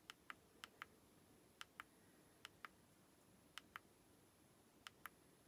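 Buttons of a Sony NW-A1000 hard-disk Walkman clicking as its menus are stepped through: six quick pairs of sharp clicks, each a press and a release, spread over about five seconds against near silence.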